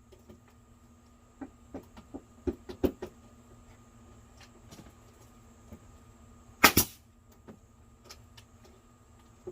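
A nail gun fires with a loud sharp double crack about two-thirds of the way in, fastening a wooden faux beam. It is preceded by a run of lighter knocks and taps in the first few seconds.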